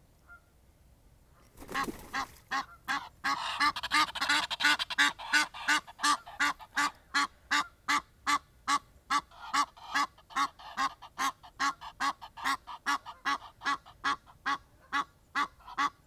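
Egyptian geese honking: a rush of wingbeats as a second goose lands about two seconds in, then a long run of loud, rhythmic honks, about three a second. The honking is busiest for the first few seconds after the landing.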